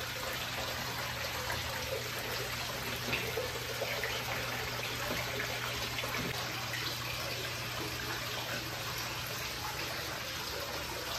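Water from an artificial-rock garden fountain falling and splashing steadily into its pool, with small droplet splashes over a low steady hum.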